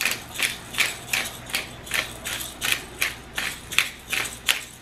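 Hand-twisted black pepper grinder cracking peppercorns: an even run of short grinding crunches, about three strokes a second.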